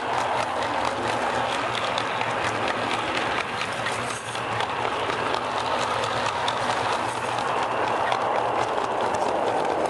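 G-scale garden railway train rolling along the track, its cars rattling with a steady stream of fine clicks from the wheels on the rails, over a low steady hum.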